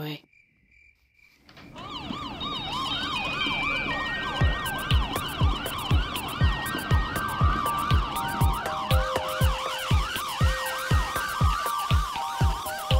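Emergency vehicle siren in fast up-and-down sweeps, fading in about a second and a half in, layered with music: held notes stepping downward and, from about four seconds in, a kick-drum beat about twice a second.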